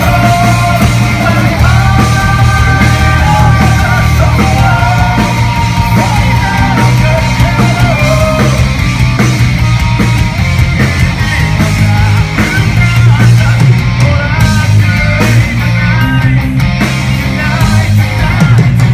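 Loud live rock band with a singer, heard from within the crowd, the sound heavy in the bass.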